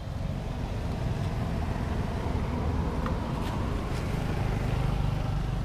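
Road traffic: a steady low rumble of passing vehicles, with a few faint clicks about three to four seconds in.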